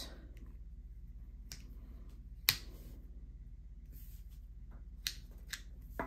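Several sharp clicks of a multitool's implements being opened and snapped shut, the loudest about two and a half seconds in, over a faint steady low hum.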